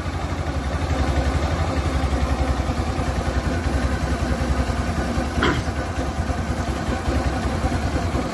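Suzuki Access 125 scooter's single-cylinder four-stroke engine idling steadily just after a cold start, with one short click about five and a half seconds in. The engine-side noise the owner is chasing, which his mechanic blames on a bearing near the V-belt, is not there yet on the cold engine.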